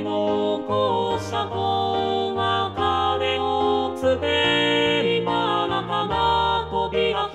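Soprano and male (tenor) choral parts singing a melody in two-part harmony on held, even notes, one part in each stereo channel.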